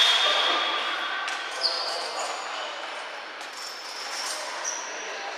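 Basketball game play: sneakers squeaking briefly on the court a few times and a ball bouncing.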